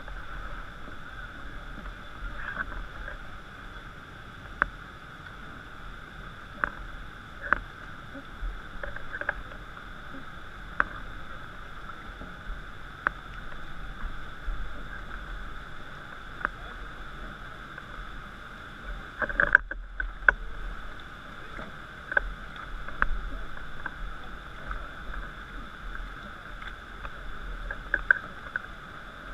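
Steady, muffled rushing of river rapids and a waterfall heard through a waterproof camera housing, with scattered sharp ticks and knocks of water against the housing or raft. The sound cuts out briefly about two-thirds of the way in.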